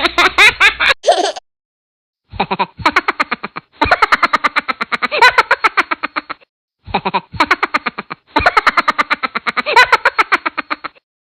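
Human laughter sound effects played one after another: rapid, rhythmic ha-ha-ha laughs in three runs, with short silent gaps between clips about a second in and at about six and a half seconds.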